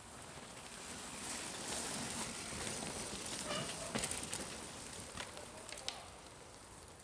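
Mountain bikes riding past on a muddy dirt trail: the rolling noise of the tyres on soil and leaves swells up and fades away, with a few sharp clicks and rattles from the bikes as they go by.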